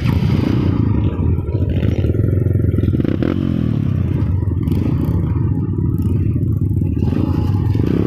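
A motor vehicle's engine running steadily, with a heavy low rumble throughout.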